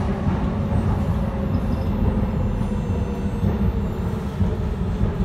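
Driverless metro train running through a tunnel, heard from inside the car: a steady low rumble of wheels on rail and running gear, with a faint steady hum above it.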